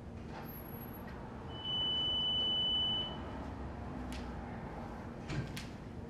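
A single steady high-pitched electronic beep lasting about a second and a half, with a few short knocks near the end.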